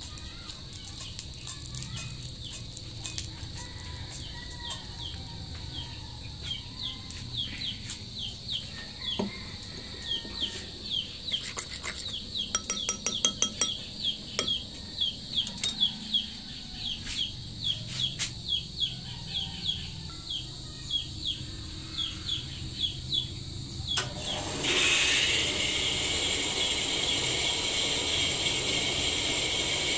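A spoon whisking pancake batter in a ceramic bowl, with quick, even clinks and scrapes against the bowl. Near the end a steady sizzle starts suddenly as batter hits the hot pan.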